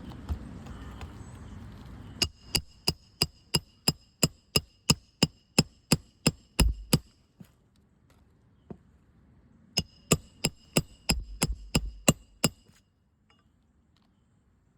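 Roofing hammer driving nails into a replacement 3-tab asphalt shingle: two runs of quick, even hammer blows with a metallic ring, about three a second, the first run of about a dozen blows, the second of about seven after a short pause.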